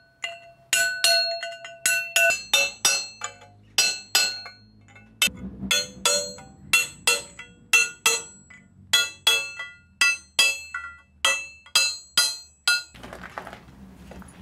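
Repeated hammer blows on a cold chisel driven into the parting groove of a rusty steel pipe held on a lathe, each blow a sharp metallic clink that rings on, about two a second. The blows stop about a second before the end as the nearly parted-off pipe section breaks free.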